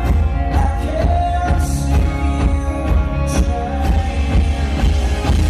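Live rock band playing: electric guitars over bass and drums with cymbals, loud and steady.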